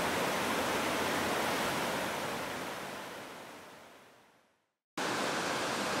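Mountain stream rushing steadily over rocks; the rush fades out over about two seconds, drops to silence for a moment, then cuts back in suddenly about five seconds in.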